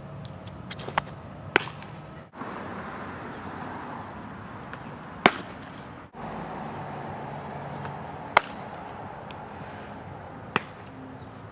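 Fastpitch softballs smacking into a catcher's leather mitt: four sharp pops a few seconds apart, over a steady outdoor background.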